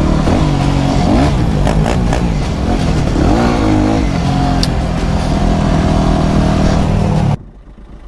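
Motorcycle engine running and being revved, its pitch rising and falling several times, then cutting off suddenly near the end.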